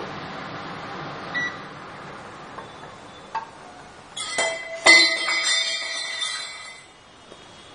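Metal ladle stirring curry in a pressure cooker pot, with a few light knocks and then sharp clinks against the pot about four to five seconds in that leave the metal ringing for a couple of seconds.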